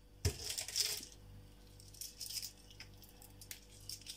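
A light knock, then a short rustle, then faint scattered clicks and rustling: small objects handled on a table, over a faint steady hum.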